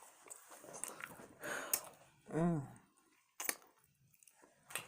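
Eating noises: scattered sharp clicks of chewing and lip-smacking, and one short pitched voice-like sound about halfway through that rises then falls in pitch.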